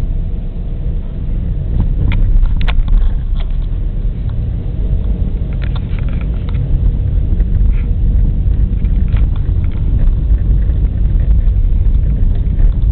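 Steady low rumble of a car being driven, with a few short rattles or clicks about two to three seconds in and again later.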